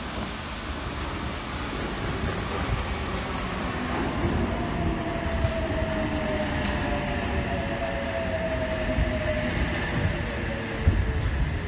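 NSW TrainLink H-set (OSCAR) electric multiple unit pulling into a platform and slowing. Under a steady rumble of wheels on rail, a whine falls in pitch as the train decelerates, from about four seconds in until near the end.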